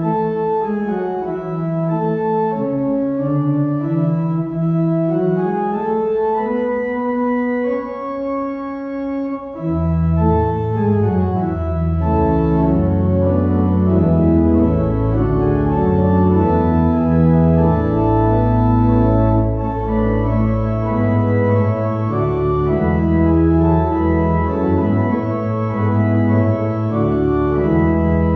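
Church organ playing a slow piece in held chords that move step by step. Deep pedal bass notes come in about ten seconds in and the sound grows fuller.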